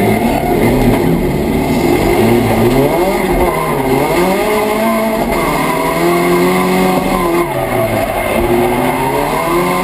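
A drift car's engine, heard from inside the cabin, revving hard, its pitch climbing and dropping again and again through the slide, with tyres squealing under it.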